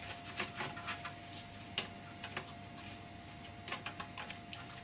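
Light, scattered clicks and taps of a motherboard being lowered into a computer case and nudged into place over its standoffs, the sharpest knock about two seconds in. A faint steady tone hums underneath.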